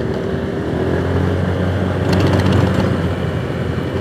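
Automatic scooter engine running at riding speed, with wind and road noise around it; it gets a little louder about two seconds in.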